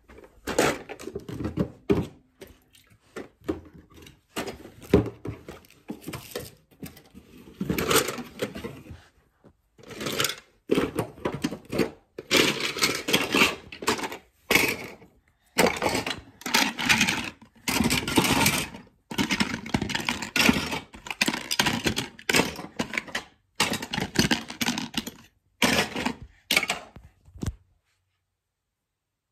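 Plastic Lego bricks clattering and rattling as they are scooped and dropped into a plastic bin, in repeated bursts of a second or two with short pauses, stopping abruptly shortly before the end.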